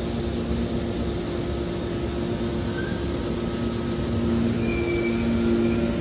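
Hydraulic scrap metal baler running, a steady mechanical hum from its hydraulic power unit. About two-thirds of the way in, the hum grows louder and short high squeals join it.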